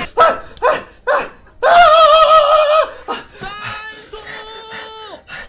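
A person's voice making laughing, wordless vocal sounds: a few short bursts, then a loud wavering held note about two seconds in, followed by quieter steadier held tones.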